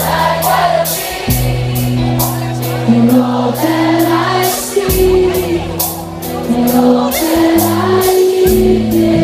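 Live rock band playing a slow song: electric bass and guitars holding sustained chords, drums with cymbal strokes keeping a steady beat, and many voices singing the melody over them.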